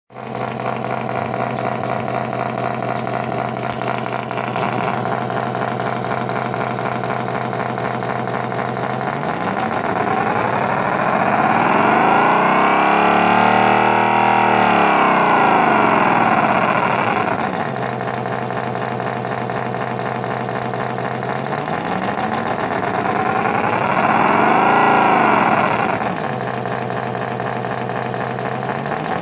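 Electronic engine sound-effect circuit for a battery forklift, imitating a combustion engine. It idles steadily, revs up and back down in one long rev about ten seconds in, then gives a shorter rev near the end.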